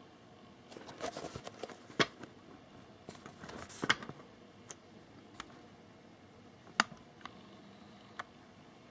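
Cardboard box being handled and turned in the hands: short spells of rustling and scraping with a few sharp clicks and taps, the loudest about two seconds in, just before four seconds, and near seven seconds.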